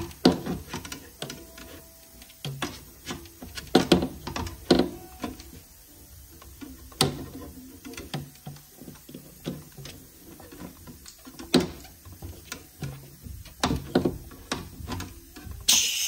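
Small tube cutter worked by hand around a copper refrigerator line, giving irregular clicks and scrapes. Near the end the cut breaks through and refrigerant gas starts hissing out of the line, a sign that the system still held its charge and has no leak.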